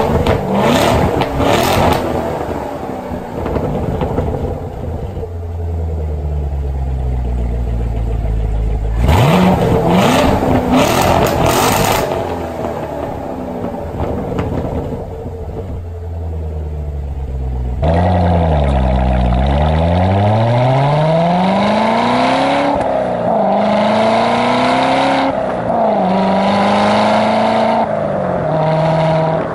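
C7 Corvette Stingray's LT1 V8 cold-starting through an AWE off-road X-pipe with the secondary cats removed. It fires with a flare, settles into a fast cold idle, and flares again about nine seconds in. After a cut about eighteen seconds in, the same engine on its stock exhaust accelerates moderately, its pitch climbing and then dropping at each upshift several times.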